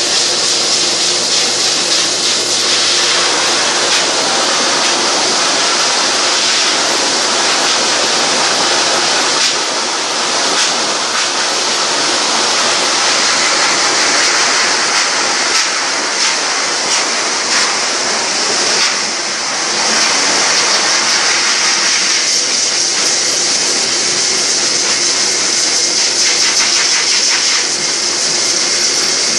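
High-velocity pet dryer running continuously: a loud, steady rush of air with a strong high hiss over a steady motor hum. It is blowing loose hair and dead skin out of a dog's dry coat before a bath.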